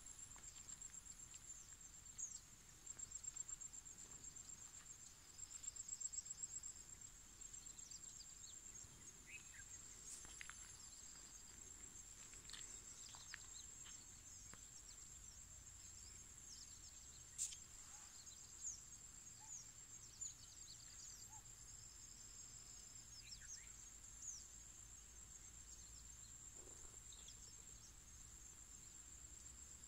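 Faint, steady, high-pitched insect chorus of crickets trilling, with scattered short bird chirps and calls over it.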